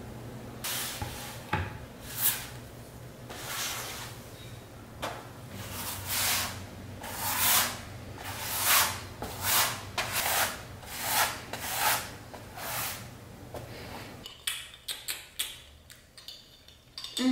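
A wide flat bristle paintbrush swept back and forth across a canvas, laying on a coat of gesso. It makes a steady run of scratchy strokes, about one and a half a second. The strokes stop near the end, and a few light clicks follow.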